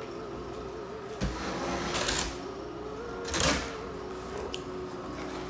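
Gift box and its packaging being handled: short rustles and scrapes about a second in, at two seconds, and a louder one about three and a half seconds in, over a faint steady tone.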